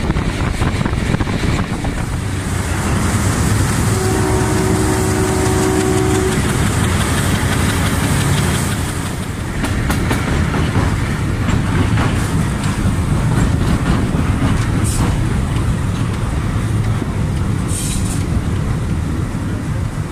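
Sri Lanka Railways Class M8 diesel locomotive running at speed, with a steady engine rumble, rushing air and wheels clacking over rail joints. Its horn sounds once for about two seconds, a little after the start.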